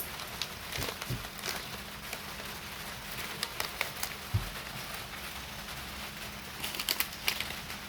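Light rain falling outdoors, a steady hiss dotted with scattered sharp drips and small taps, which come in a quick cluster near the end.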